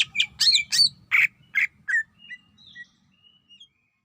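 Cucak ijo (greater green leafbird) singing: a fast run of loud, sharp chirping and whistled notes that thins into a few faint short notes and stops shortly before the end.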